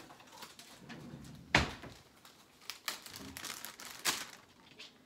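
A plastic food storage bag crinkling as it is pulled out and opened. A single sharp knock comes about a second and a half in.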